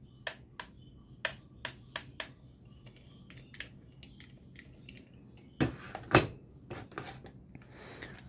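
Hard plastic toys being handled: a run of light clicks and taps as a toy juicer is turned in the hands, then two louder knocks about six seconds in as it is set down on the table, followed by a few lighter taps.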